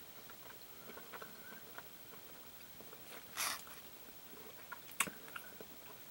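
A person chewing soft beef jerky: faint, scattered wet mouth clicks, with a brief louder rustle about three and a half seconds in and a sharper click at about five seconds.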